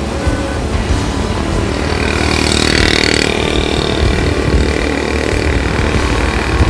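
Small motorcycle engine running steadily while riding along a road, heard from on the bike, under a low rumble of wind and road noise. A brief brighter hiss comes about two to three seconds in.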